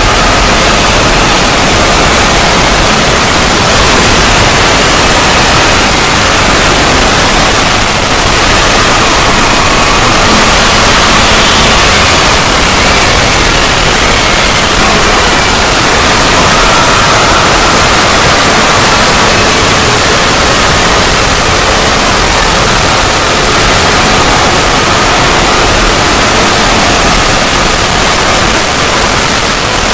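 Very loud, harsh static-like noise from a distorted 'void logo' sound effect, steady and dense, with faint held tones buried in the hiss.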